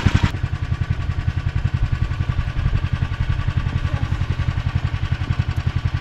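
Snowmobile engine idling steadily with an even, fast pulse. A hiss over it stops just after the start.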